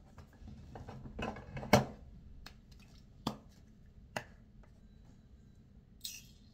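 A few knocks and clicks of things being handled and set down on a desk, the sharpest just under two seconds in; near the end, a short hiss as an aerosol can is sprayed.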